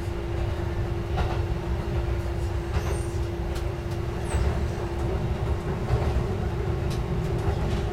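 KiHa 11 diesel railcar running along single track, heard from inside: a steady engine drone with a constant hum over the rumble of the wheels on the rails, and a few sharp clicks from the wheels on the track.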